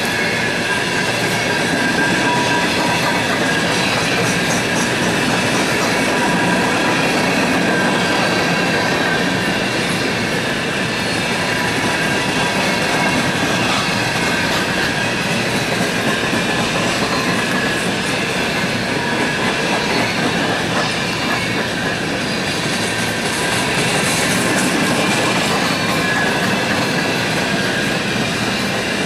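Empty CSX coal hopper cars rolling past: a steady rumble and clatter of steel wheels on rail, with thin, steady squealing tones from the wheels.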